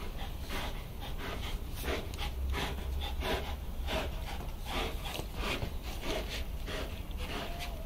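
Two pit bull-type dogs playing tug-of-war on a rope, their breathing coming in short, irregular bursts about two a second.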